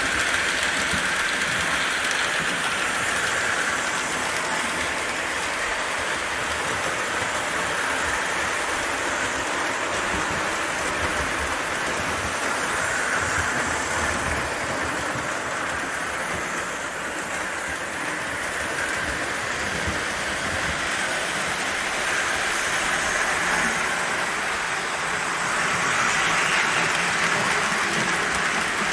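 Marx O gauge toy switcher locomotive running on its track, its motor just oiled: a steady whirring and rattling that swells and fades a few times.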